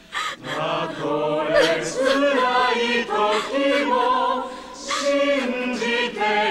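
A choir singing a slow, gentle melody in several voices, part of the film's score.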